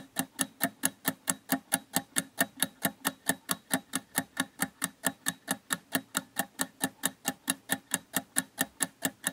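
Countdown timer sound effect: a clock-like ticking, about four to five ticks a second, steady throughout.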